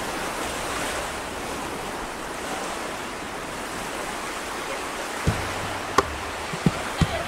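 Steady wash of ocean waves and surf. In the last two seconds a low hum and a few sharp taps come in under it.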